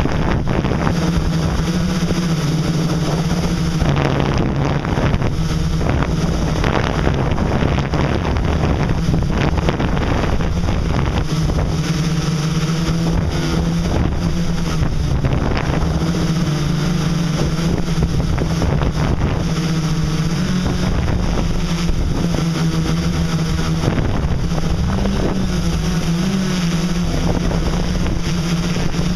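MikroKopter X8 octocopter's eight brushless motors and propellers humming steadily in flight, heard from the camera mounted on the craft, with wind noise on the microphone. The pitch wavers a little as the motors change speed, most noticeably near the end.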